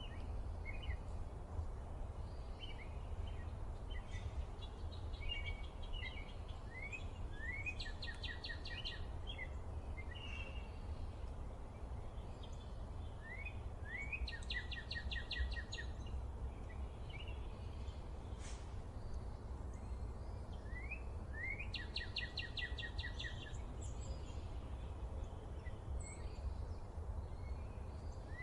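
Songbirds singing over a steady low background rumble. One bird repeats the same song about every six to seven seconds, a few quick rising notes running into a fast trill, while other birds chirp briefly in between.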